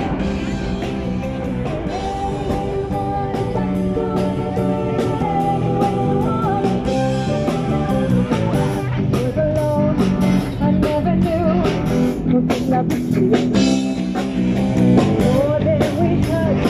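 Live rock band playing: electric guitar, keyboards and drum kit with a steady beat, and a woman's lead vocal that comes in about halfway through.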